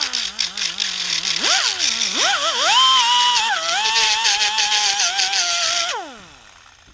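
Electric angle grinder running and grinding saw teeth into the rim of a small ferrous pipe fitting: the motor's pitch dips each time the disc bites and recovers, over a gritty grinding hiss. About six seconds in it is switched off and winds down with a falling whine.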